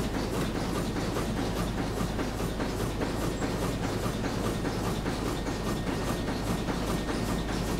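A ship's steam engine running, with a steady, fast rhythmic clatter over a constant low hum.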